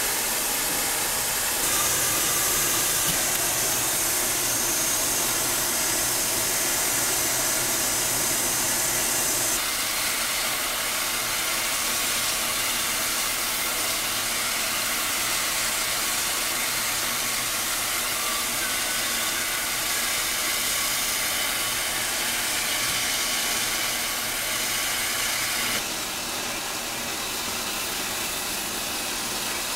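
Steady hiss of steam escaping from a standing Alco Type 70 steam locomotive that is fired and in steam. The hiss turns sharper about two seconds in, eases around ten seconds, and drops a little lower near the end.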